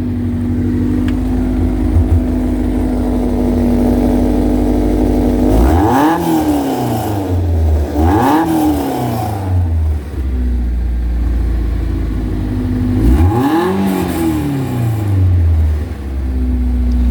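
Lotus Seven's warm engine running at idle with the car standing still, revved three times, each rev rising in pitch and falling back to a steady idle.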